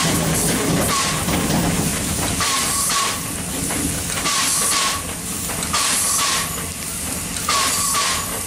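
Small steam locomotive working slowly, heard from its front end: steam exhaust beats come as hissing chuffs about every second and a half, each ending in a brief tone, over a steady rumble of the moving train.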